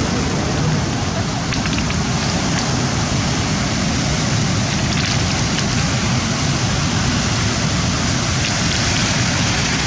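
Rough sea surf washing against the shore in a steady, unbroken rush.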